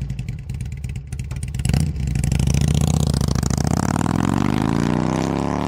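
Motorcycle engine running with a rapid even pulsing, getting louder about two seconds in, then revving up with its pitch rising steadily toward the end.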